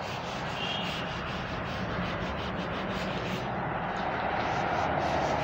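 Steady background noise, then from about three and a half seconds in a duster rubbing chalk off a blackboard.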